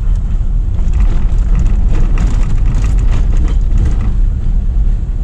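Car driving along a road: a steady low rumble of engine and tyres, with scattered rattles and knocks in the middle.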